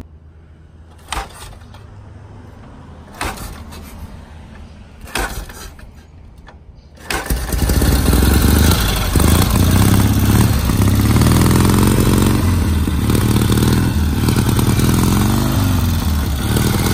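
1941 BMW R12's flat-twin side-valve engine being kickstarted: three sharp kicks about two seconds apart without firing, then it fires about seven seconds in and runs loudly, revved up and back down.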